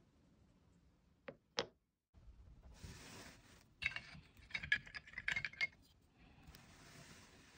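Wooden-handled carving chisels and knives clinking and rattling against one another as a hand rummages through a woven basket of tools, with rustling of the basket before and after. Near the start there are two sharp taps as the carved avocado seed is set down on a wooden block.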